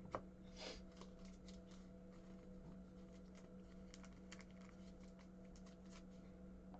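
Faint clicks and short rustles of trading cards and packs being handled, with one sharper click near the start, over a steady low hum.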